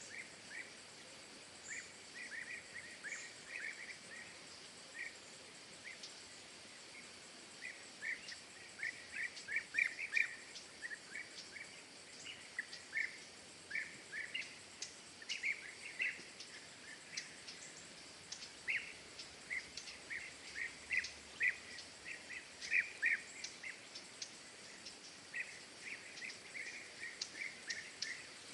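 Small birds chirping: many short, quick chirps in irregular clusters over a faint steady background hiss.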